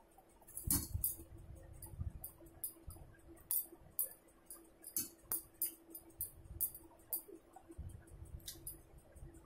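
A hand mixing and scooping rice and dal on a steel plate, with irregular sharp metallic clinks against the plate and soft rustling of the food.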